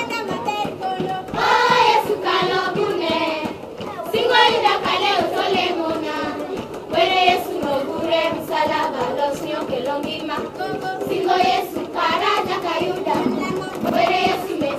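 A large group of schoolchildren singing together in unison, in short phrases.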